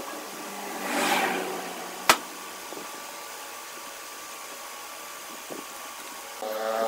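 Putty knife scraping wood filler onto a wooden door rail about a second in, then one sharp click, over a steady workshop machine hum.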